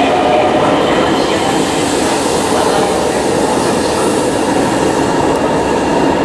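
Keihan 13000-series electric train pulling out of an underground station platform: a steady running rumble of wheels and motors, echoing in the station.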